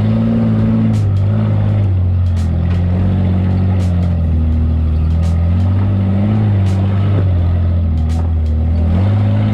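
Off-road vehicle engine running steadily under load, its pitch rising and falling slightly, with a few sharp knocks scattered through.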